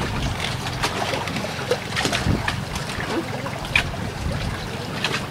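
Water trickling and lapping, with a few scattered light knocks.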